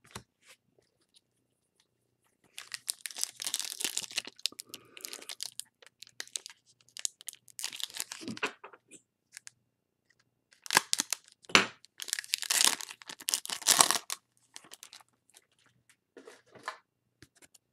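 Foil wrapper of a 2019 Topps Gallery trading-card pack being torn open and crinkled in the hands, in two spells of crackling and tearing, the second louder, then a few quieter rustles near the end.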